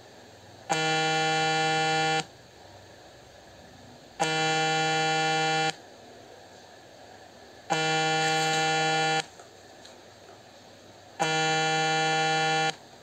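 A low buzzing tone that sounds four times, each lasting about a second and a half and repeating every three and a half seconds, starting and stopping abruptly at a steady pitch.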